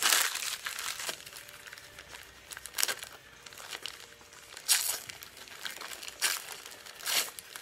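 Paper crinkling and rustling in several short bursts as wrapped ornaments are unwrapped by hand, the loudest burst right at the start.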